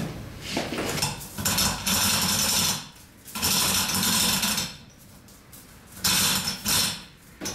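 Manual chain hoist being worked by hand to lower an engine: the metal chain clatters and rattles through the hoist block in three long spells with short pauses between.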